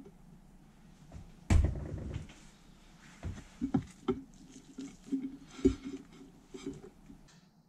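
Hands assembling a fried fish sandwich on a plate: lettuce dropped on and the top of a soft roll set in place and pressed down. There is one loud knock about a second and a half in, then a run of soft handling knocks and light clicks.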